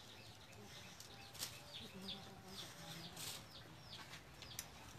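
Faint, repeated high chirps of small birds or chicks, each dropping quickly in pitch, with a few light clicks from bamboo strips being handled during basket weaving.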